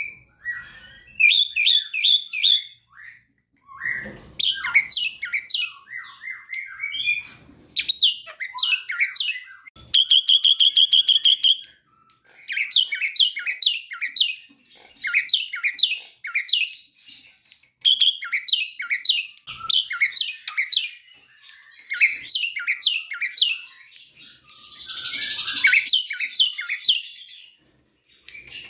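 Javan myna singing: phrases of short, sharp chirps and whistles repeated in quick runs, with brief pauses between them. About ten seconds in comes a steady buzzing trill on one pitch, and near the end a harsh screech.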